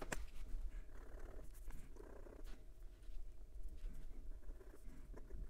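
Extra-fine steel fountain pen nib scratching across notebook paper in short writing strokes, with a light tap near the start. The nib is very dry and skips, its tines set too tight.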